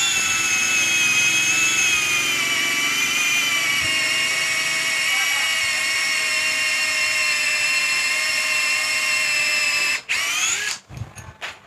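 Electric drill spinning a swaging bit into the end of a half-inch pipe to widen it. It runs steadily for about ten seconds with its pitch sagging slightly under load, stops, then gives one short burst rising in pitch before cutting off.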